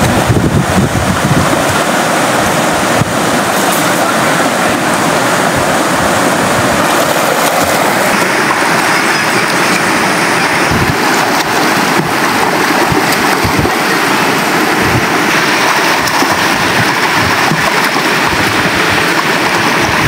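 Shallow rocky river rushing over stones in a steady rush of water, with a person splashing in it near the start.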